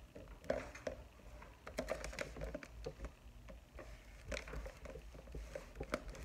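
Faint, irregular crinkling and clicking of a foil Mylar bag as it is handled and pressed flat with a clothes iron to heat-seal its top edge.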